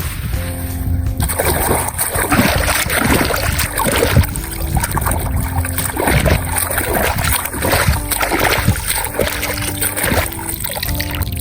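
Water splashing and sloshing in irregular strokes as a toy is washed by hand in water, over steady background music. The splashing starts about a second in and stops shortly before the end.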